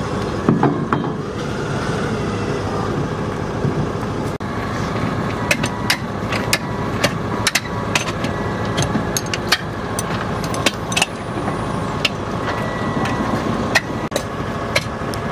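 A nearby engine runs steadily while the latches and lids of metal ordnance containers are worked by hand. Sharp metallic clicks and clanks come irregularly, mostly in the second half.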